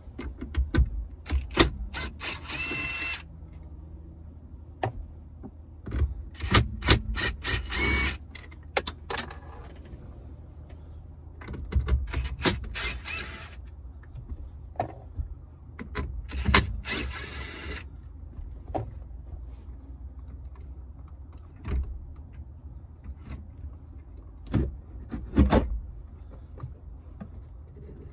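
DeWalt 20V MAX cordless drill with a 7mm socket running in four short bursts of a second or two each, backing out the four screws that hold the factory radio. Clicks and knocks come between the bursts and again near the end.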